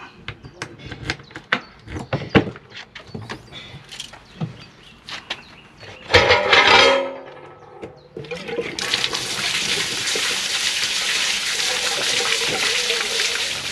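Scattered clicks and knocks, a short loud burst about six seconds in, then from about nine seconds a steady rush of water: a motorhome's waste water draining at a service point.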